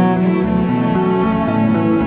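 Background music on bowed strings, a slow melody over low bass notes that change about every half second.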